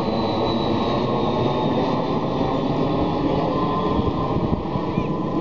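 Twin-engine jet airliner passing overhead and heading away: a steady, deep rush of jet engine noise with a faint high whine that slowly falls in pitch.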